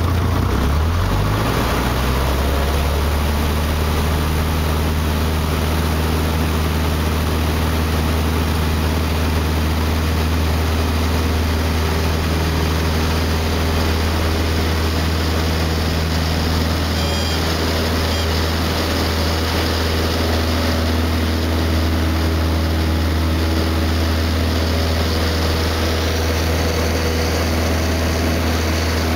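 A Cessna 152's four-cylinder Lycoming engine and propeller heard from inside the cabin. The engine's pitch rises over the first second or so as power comes up, then holds steady and loud through the takeoff roll and climb-out.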